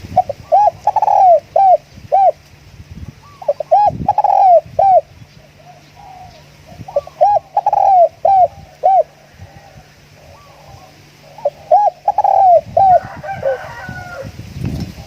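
Spotted dove cooing: four phrases of arched, repeated coo notes, each a second or two long, a few seconds apart.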